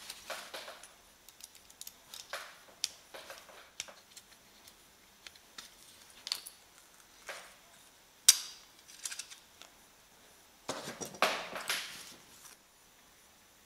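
Small clicks and scrapes of handling as the canopy is worked loose and pulled off a micro quadcopter frame. There is one sharp click about eight seconds in and a longer run of scraping and rustling near the end.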